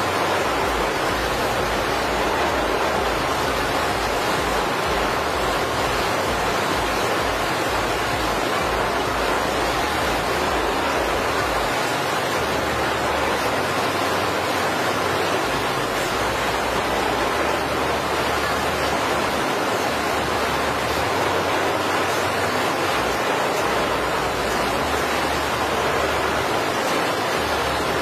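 Steady, even rushing noise with no engine tone and no separate events.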